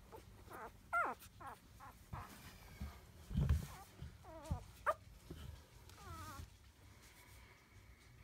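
Newborn Havanese puppies giving short, high, wavering whimpers and squeaks, several over a few seconds, with a soft low thump about three and a half seconds in.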